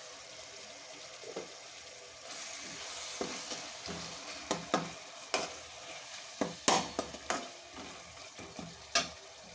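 Onions, tomatoes and curry leaves sizzling in oil in a wide metal kadai as they are sautéed soft, the hiss growing louder about two seconds in. A perforated metal spatula stirs them, scraping and knocking against the pan several times in the second half.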